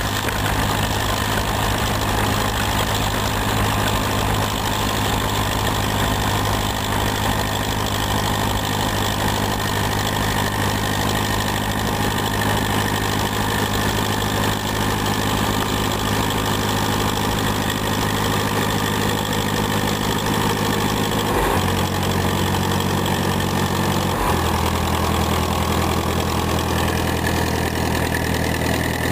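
McCormick WD-9 tractor's four-cylinder diesel engine running steadily while pulling a plow through the soil. Its low, even note shifts pitch about two-thirds of the way through, then settles again a few seconds later.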